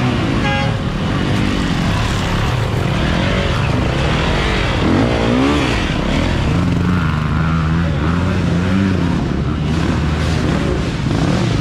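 Several dirt bike engines revving up and down over and over, the throttle blipped and held as riders pick their way over rocks, with one engine holding a steadier note for a couple of seconds past the middle.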